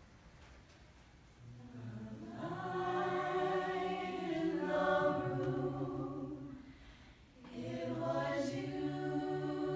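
A mixed choir of teenage boys and girls singing a cappella in held, close harmony chords, no instruments. The voices come in softly about a second and a half in and swell, break off briefly about three-quarters through, then come back in.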